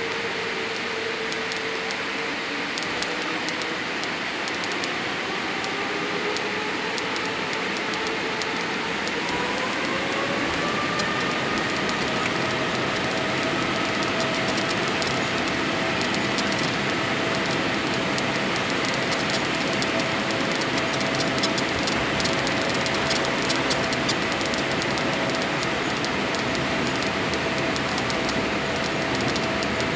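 Boeing 787-8's Rolls-Royce Trent 1000 turbofan engines heard from inside the cabin, spooling up: their whine climbs in pitch about eight to twelve seconds in, then holds steady at high thrust over a growing roar. This is typical of thrust being set for the takeoff roll.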